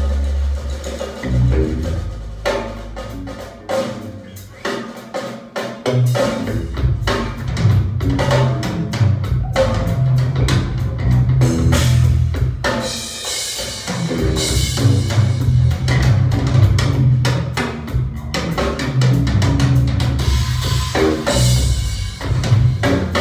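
Recorded music with a drum kit and deep bass, played through hi-fi loudspeakers driven by an ECDesigns Power DAC R, a Re084 DHT preamplifier and an F2a tube amplifier. The bass thins out briefly about five seconds in, then the full beat returns.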